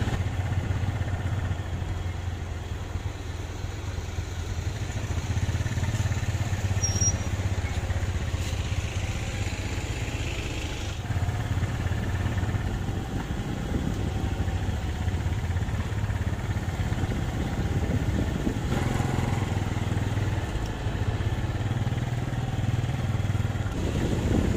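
Small motorbike engines running steadily at riding pace, with a continuous low engine hum and road noise.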